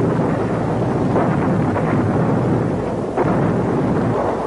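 Continuous rumble of battle: explosions and gunfire, with sharper blasts a little over a second in and about three seconds in.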